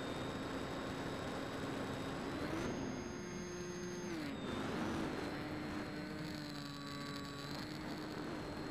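Electric motor and pusher propeller of a Bixler RC foam plane whining steadily in flight, heard from the onboard camera over a rushing hiss of air. The pitch steps up about two and a half seconds in, holds for about a second and a half, then drops back.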